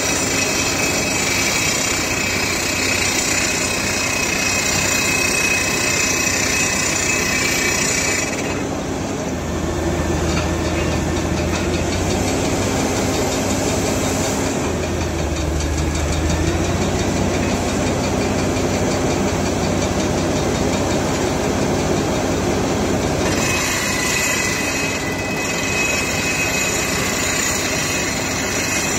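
Furukawa HCR1500ED-N hydraulic crawler drill rig drilling a blast hole: a loud, steady rattling of the rock drill over the engine, with air blowing dust out of the hole. The high hiss drops away for about fifteen seconds in the middle, while a low hum grows stronger, then returns.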